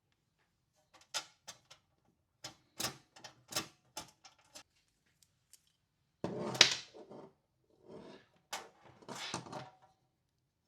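Hands handling and fitting hardware into a power-station chassis on a workbench: a run of sharp clicks and taps, then a louder clatter about six seconds in, followed by more rattling.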